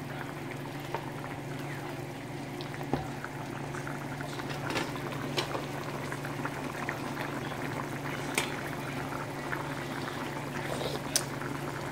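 Thick sardine and vegetable stew simmering in a pan: a steady bubbling with scattered pops of bursting bubbles that grow more frequent after the first few seconds, over a constant low hum.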